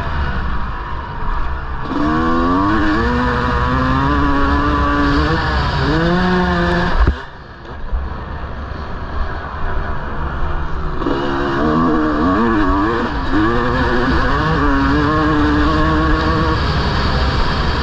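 1999 Honda CR250R two-stroke motocross engine revving hard, its pitch climbing and falling again and again through the gears. A sharp knock comes about seven seconds in, and the engine drops low for a few seconds before the throttle opens and it climbs again.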